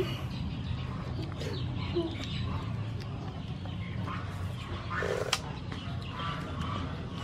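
Birds chirping over a steady low rumble of outdoor background, with a few light clicks as mussel shells are handled and a short rustle about five seconds in.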